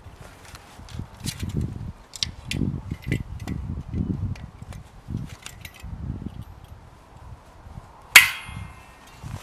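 Bow saw handled against a snow-covered log: soft knocks and scrapes of the blade on the wood, then about eight seconds in a single sharp metallic clang from the saw that rings on briefly.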